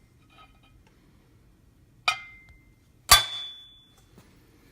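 Hammer striking a center punch on a broken steel bolt: two sharp metallic taps about a second apart, each with a short ring, the second louder. The punch is marking the bolt's center so that it can be drilled out for an extractor.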